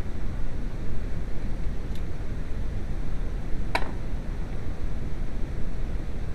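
Volkswagen 2.0L AZG four-cylinder engine running after its no-start repair, heard as a steady low rumble, with one sharp click a little past halfway.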